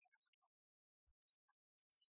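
Near silence, broken by faint, choppy scraps of sound.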